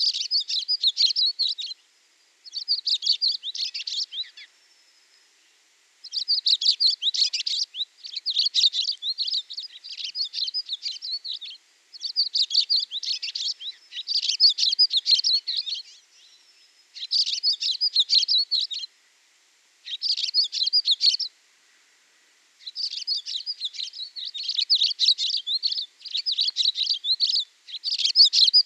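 Small songbirds singing: high, rapid chirping trills in phrases of one to two seconds, separated by short pauses, phrase after phrase.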